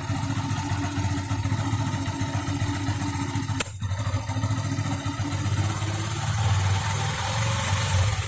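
Yamaha FZ16's single-cylinder four-stroke engine running steadily around 2000 rpm, with the intermittent popping the owner is asking about; one sharp click with a brief dip a little over a third of the way in, and the engine note fuller and louder near the end.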